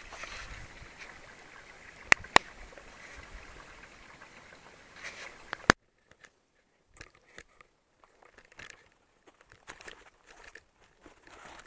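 A steady hiss with two sharp clicks close together about two seconds in and another just before the halfway point, where it cuts off. Then quiet, irregular crunching footsteps on snow.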